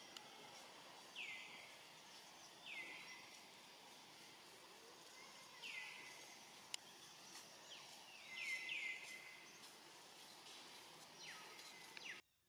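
Faint outdoor background with a series of short, high-pitched animal calls, each sliding down in pitch, about seven in all, three of them in quick succession past the middle. A single sharp click comes just before the middle, and the sound cuts out suddenly near the end.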